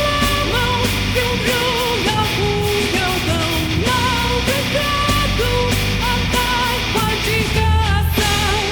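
Melodic death metal instrumental passage: a lead electric guitar plays a melody with wavering vibrato over distorted rhythm guitars, bass and steady drums.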